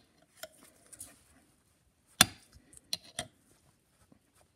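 Needle-nose pliers clicking and knocking against the metal of a Victor phonograph motor's governor and frame: a few sharp taps, the loudest about two seconds in.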